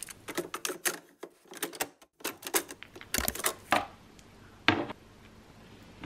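A quick, irregular run of sharp plastic clicks, like small keys or buttons being pressed, for about four seconds, then one more click near the five-second mark.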